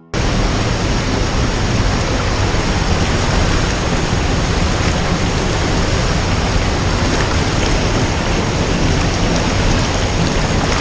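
Loud, steady rush of a rain-swollen mountain stream's rapids, an even unbroken noise.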